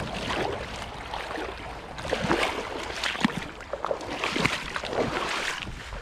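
Wading through a shallow creek in waders: water sloshing and splashing around the legs with each step, with scattered small knocks and clicks.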